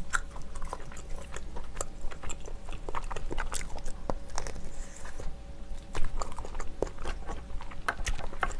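Close-up sounds of a person chewing and biting steamed clam meat, with many short wet mouth clicks and smacks at an irregular pace.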